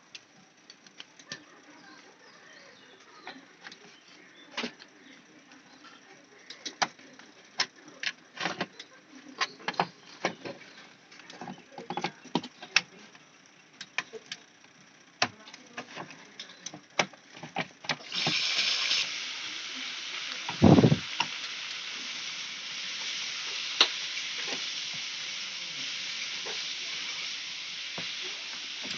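Scattered sharp clicks and knocks of hands and tools working on parts of a washing machine. About two-thirds of the way in, a steady hiss starts suddenly, and one heavy thump comes a couple of seconds later.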